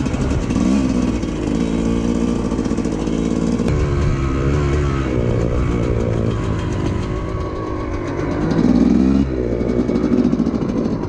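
TM 250EN two-stroke enduro bike's engine being ridden, its pitch rising and falling with the throttle. There is a louder burst of throttle about three-quarters through that cuts off sharply.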